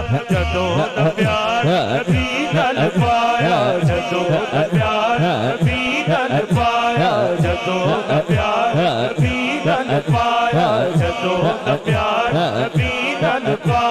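Devotional chanting by a backing group, a short phrase repeated over and over over a deep repeating pulse, as the accompaniment to a naat recitation.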